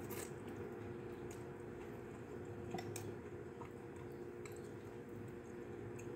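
A person slurping in a mouthful of noodles, then chewing with wet, squishy clicks of the mouth close to the microphone, over a steady low hum.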